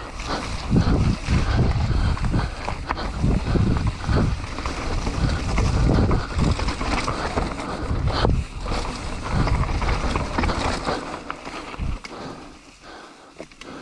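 Mountain bike riding down a dirt trail: wind buffeting the microphone over a rough rumble and clatter from the tyres and bike on uneven ground, dying down near the end.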